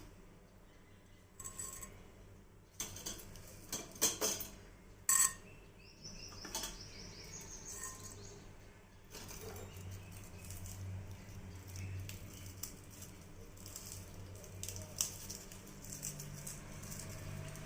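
Kitchen utensils clinking and knocking against pots and dishes, with a few sharp clinks about four and five seconds in, then a steady low hum.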